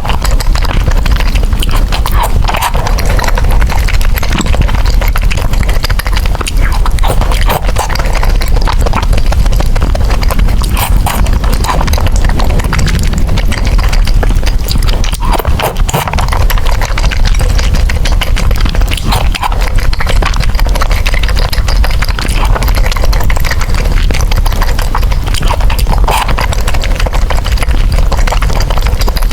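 Close-miked chewing of noodles: a dense, continuous run of wet mouth clicks and smacks.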